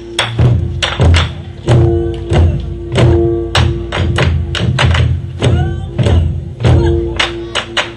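Ensemble of Korean buk drums played in a driving rhythm meant to evoke galloping horse hooves: deep booming strokes, several a second, mixed with sharp stick clicks, and the drumheads ringing after the heavier hits.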